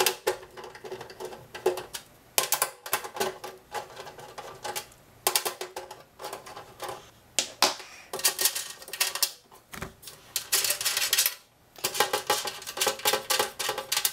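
Hand nut driver unscrewing the steel nuts that hold the DIN-rail frame to the base of a metal distribution enclosure: runs of rapid metallic clicking and rattling, broken by short pauses as the tool moves from nut to nut.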